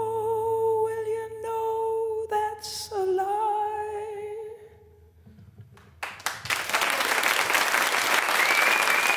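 A male singer holds a long wordless final note that steps down slightly in pitch twice and fades out about four and a half seconds in, ending the song. After a short lull, an audience starts applauding about six seconds in.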